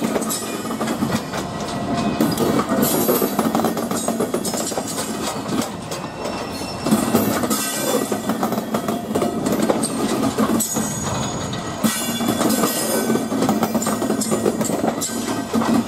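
A train running past on the line: a continuous rumble with a steady low hum, swelling twice partway through.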